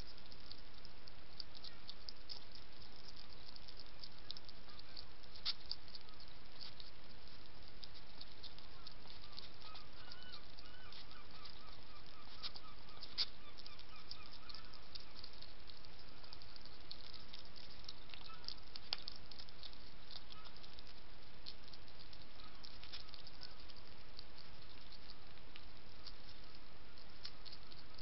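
A wild European hedgehog eating dry kitten biscuits, making many small, irregular crunching clicks over the trail camera's steady hiss.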